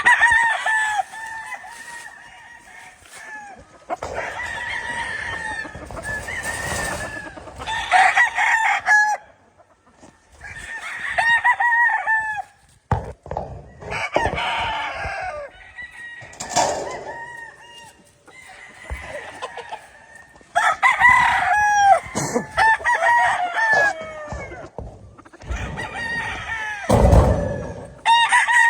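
Several gamefowl roosters crowing again and again, their crows overlapping, with some clucking between them. A loud low rumble comes in near the end.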